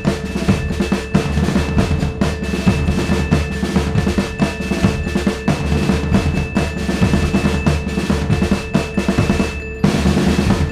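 Background music driven by fast, busy drums and percussion over a sustained tone.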